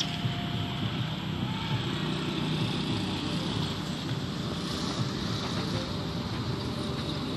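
Steady outdoor background noise: a low rumble with a high, even hiss over it, with no clear animal calls standing out.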